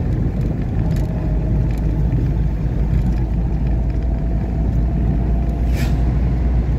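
A car driving on a paved road, heard from inside the cabin: a steady low rumble of engine and tyre noise, with a faint steady whine.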